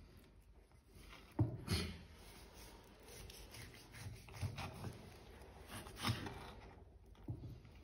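Knife cutting through a smoked pork rack between the rib bones, scraping and rasping through the crust. There are a few knocks on the wooden cutting board, two about a second and a half in and one near six seconds.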